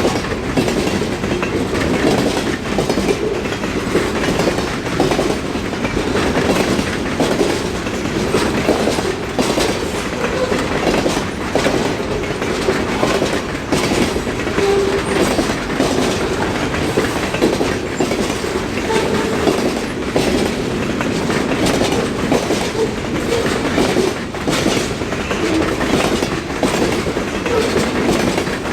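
Mixed freight train's cars rolling past, a steady rumble with wheels clicking over the rail joints.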